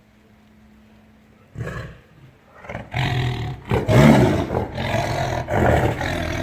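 Tiger roaring: a short growl about one and a half seconds in, then a loud, sustained roar from about three seconds in, loudest around four seconds in.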